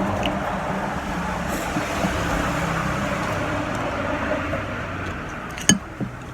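Road traffic going past: a steady rush of vehicle noise that swells and eases, fading a little near the end. A single sharp click comes near the end.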